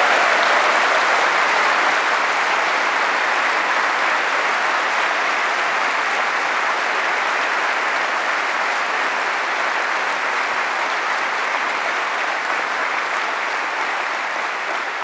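A large audience applauding steadily, easing off slightly near the end.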